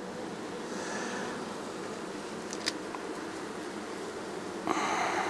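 Honeybees buzzing in a steady hum over an open hive of a very strong colony, with a short click about midway and a brief rustle of the frame being handled near the end.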